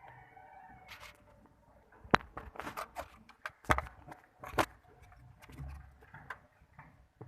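A quick run of sharp clicks and knocks, loudest between about two and five seconds in.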